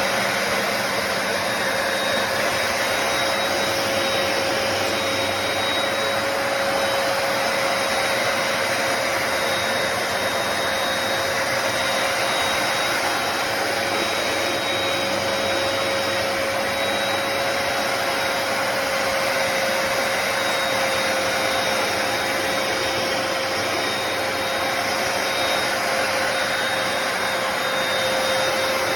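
Hoover PowerDash Pet+ compact carpet cleaner running: a steady suction-motor rush with a constant high whine over it.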